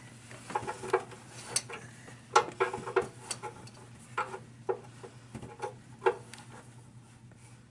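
Irregular metal clinks and taps of a wrench being fitted and worked on a pickup truck's oil drain plug, bunched in the first few seconds with a few more later.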